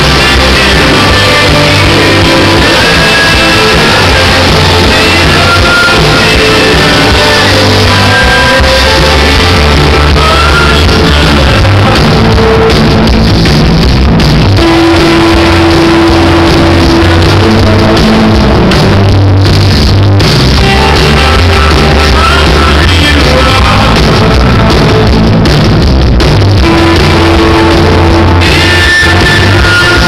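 Rock band playing live: electric guitars, bass and drum kit with a lead vocal, very loud on a camcorder's microphone, with the high end cut off.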